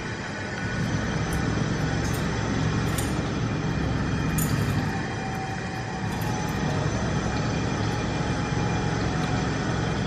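Steady low rumbling background noise, even throughout, with a few faint ticks.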